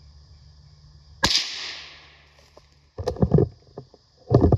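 A single gunshot about a second in, its report echoing and dying away over about a second. It is followed by two loud rumbling knocks of the camera being moved and handled.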